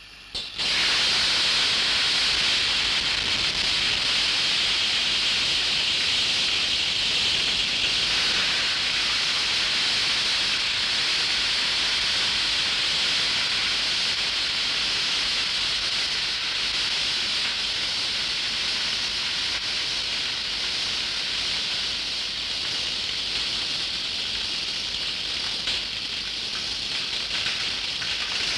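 A torch flame hissing loud and steady as it plays on a metal sculpture and melts the metal; the hiss starts suddenly about half a second in.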